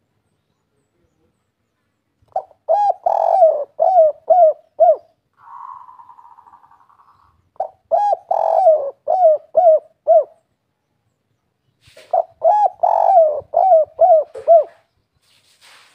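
Spotted dove (tekukur/derkuku) singing its 'kuk 3' coo song three times, a few seconds apart. Each phrase is a quick run of low, hooked coo notes. A faint hiss comes between the first and second phrase.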